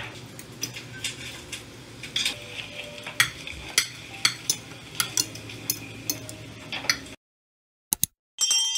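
A metal fork and spoon scraping and clinking on a ceramic plate while eating, with a sharp clink about every half second over a low steady hum. About seven seconds in the sound cuts off, then comes a single click and a short chime.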